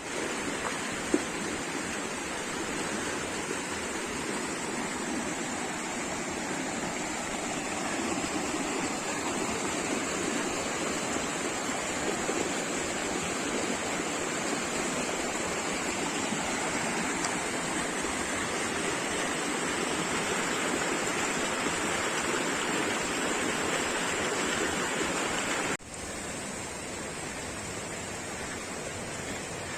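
Waterfall rushing steadily. There is a single sharp click about a second in, and the sound drops a little in level suddenly near the end.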